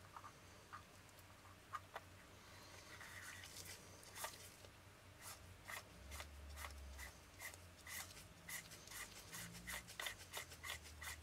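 Faint rubbing and light clicks of small metal lens parts as a cleaned lens element group is turned back into the lens barrel. Scattered clicks early on give way, about halfway through, to a run of quick light ticks at about three a second.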